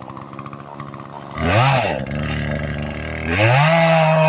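Two-stroke chainsaw idling, blipped once about a second and a half in, then brought up to full throttle near the end and held there.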